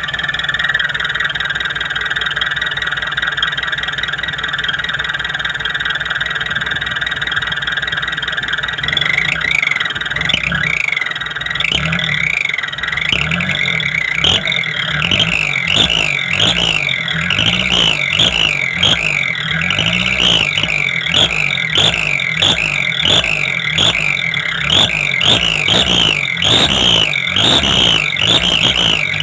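Whistle exhaust tip ('whistling pipe') on a vehicle's tailpipe, whistling with the engine running underneath. For about the first nine seconds the whistle holds a steady high note. From then on it warbles up and down in pitch, over and over.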